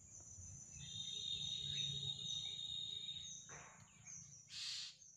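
Outdoor ambience: a steady high insect drone, with a high call held for about three seconds, and two brief rustling sounds near the end.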